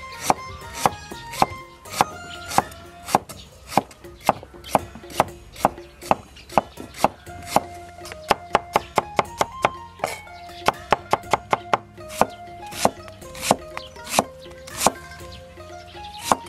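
Chinese cleaver slicing ginger on a thick wooden chopping block, then an onion near the end: sharp knocks of the blade on the wood at about two a second, quickening to a rapid run about halfway through.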